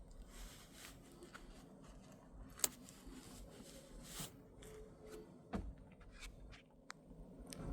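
Faint rustling and scattered light clicks close to the microphone, with one sharper click about two and a half seconds in.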